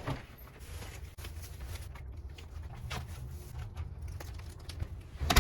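Faint crinkling and light knocks of plastic grocery bags and items being handled, over a low hum, with one sharp knock near the end.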